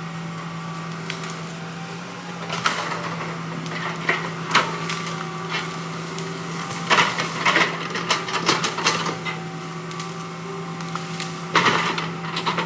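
Heavy machine engine running steadily with a low hum, under scattered knocks and cracks of wooden logs being handled, with a cluster of them a few seconds past the middle.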